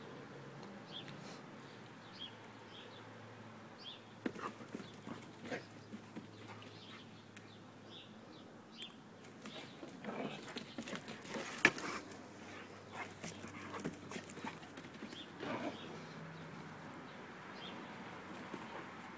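A Greater Swiss Mountain Dog and a smaller dog play-fighting: scuffling and short dog vocal sounds in irregular bursts, busiest through the middle with one sharp, loud sound.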